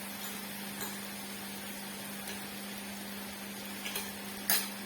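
Meat sizzling on a tabletop barbecue grill: a steady hiss over a constant hum, with a few light utensil clicks and one sharper clack near the end.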